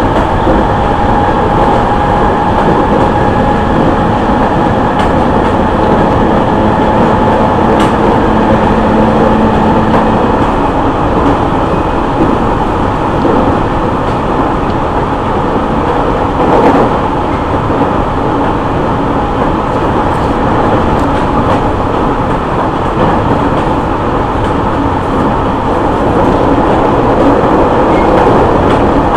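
Interior running sound of a JR East E501 series electric train at speed, heard inside a motor car: steady rumble of wheels on rail with a held whine from the Siemens VVVF-driven traction motors, and a few clicks from the track.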